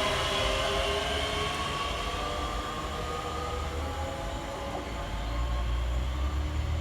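Scotrail Class 385 electric multiple unit pulling away from the platform. Its traction motor whine climbs slightly in pitch and fades over the first few seconds, and a low rumble builds near the end.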